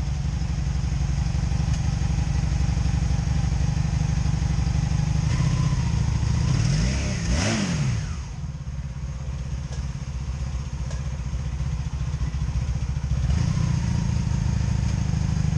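Honda Magna VF750C's V4 engine idling unevenly with a light popcorn-like popping from a misfire on one side. It is revved once about seven seconds in and settles back to idle.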